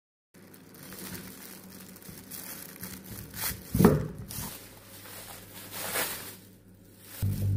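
Wrapping paper crinkling as a paper-wrapped wheel of goat cheese is cut with a knife and handled, with a louder knock just before the middle. A low, pulsing hum starts near the end.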